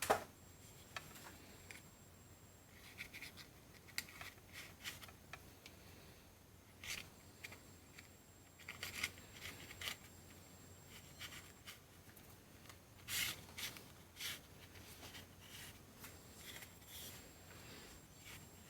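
Faint, scattered snips, clicks and rustles of hand work on wiring: heat-shrink sleeving being cut and fitted over cables.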